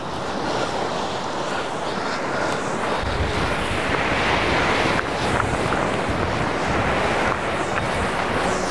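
Surf washing against the rocks of a jetty, with wind buffeting the microphone.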